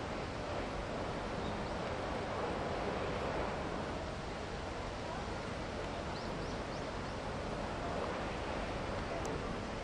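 Steady outdoor background noise, an even rush, with a few faint high chirps a little past halfway and a single small click near the end.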